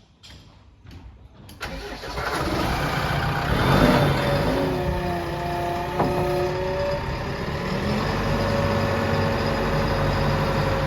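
Heavy diesel engine comes in suddenly about a second and a half in, rises in pitch to a brief rev around four seconds in, then runs steadily with a whine.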